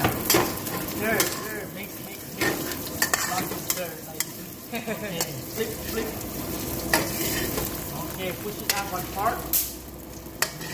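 Food frying and sizzling in oil in a steel wok while a spatula stirs and scrapes it, the spatula clacking against the metal pan in sharp, irregular clicks over a steady sizzle.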